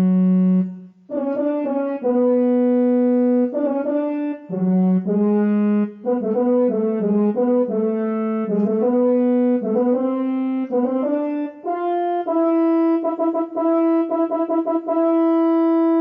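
Casio CTK-2400 electronic keyboard playing a single-line melody on a brass, French-horn-like voice, each note held with even harmonics. The tune steps up and down, then climbs and ends on a long held note near the end.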